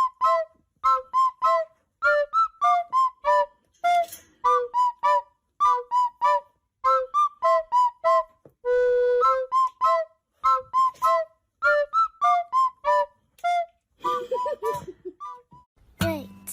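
A tune of short whistle-like notes, about three to four a second, stepping up and down in pitch, with one longer held note about nine seconds in.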